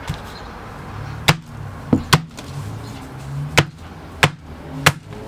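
A 6-pound sledgehammer striking folded paper six times with sharp, irregularly spaced blows, flattening the folds.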